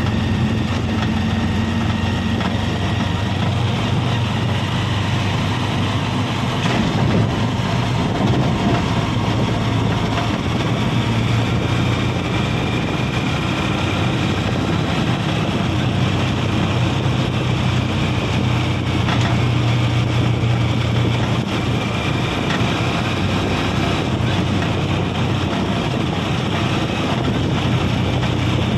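Vehicle engine running steadily with road noise, heard from inside the moving vehicle's cabin: a constant low hum.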